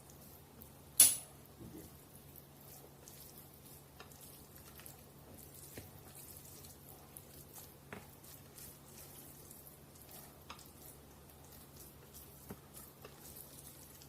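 Chopsticks mixing somen noodles into jjajang sauce in a bowl: soft wet stirring with small clicks of the utensils against the bowl, and one sharp clink about a second in.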